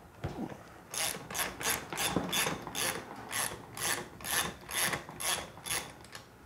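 A hand ratchet with a 17 mm socket backing a lug nut off a wheel axle. Its pawl clicks in a run of short rasping bursts, about three a second, one for each back-swing of the handle. The run starts about a second in and stops shortly before the end.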